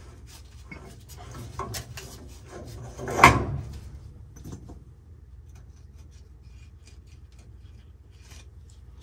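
Metal scraping and clinking from hand tools working on threaded black-iron steam pipe fittings. There is one sharp, loud knock about three seconds in.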